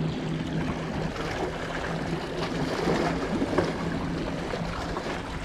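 Small waves lapping and splashing against shoreline rocks, over a low steady hum.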